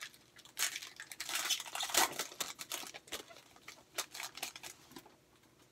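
Wrapper of a 2013 Bowman football card pack being torn open and crinkled by hand: a run of scratchy rustles and crackles that stops about a second before the end.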